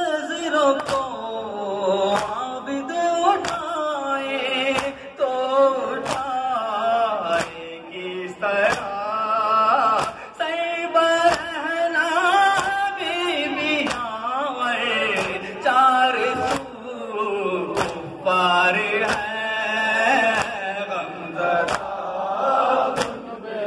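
A male nohakhwan sings a noha, a Shia lament, into a microphone in a wavering, melismatic chant. Steady rhythmic slaps run under it, about one a second: the mourners' matam, hands beating on chests in time with the recitation.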